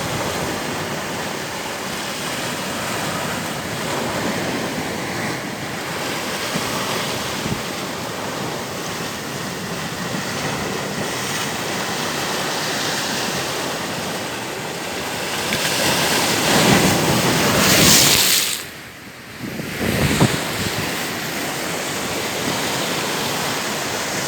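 Steady rushing of moving water. It swells louder about three quarters of the way in, then drops away sharply for about a second before returning.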